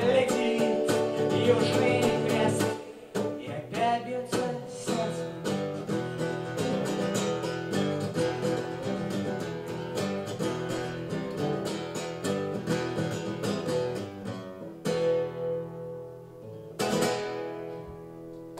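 Acoustic guitar playing the instrumental close of a song with quick strummed and plucked chords, then a held chord, and one final strum about 17 seconds in that rings out and fades.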